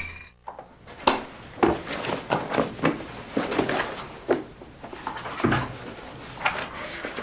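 A string of irregular soft knocks and rustles from a person handling a booklet and a backpack on a bed.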